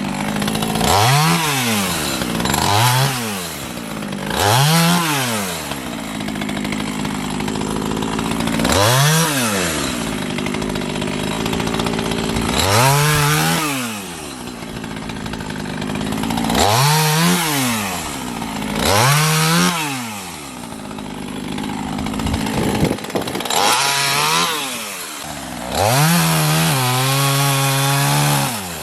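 Two-stroke chainsaw cutting firewood, revved up and let fall back over and over, about nine times. Near the end it is held at high revs for a couple of seconds.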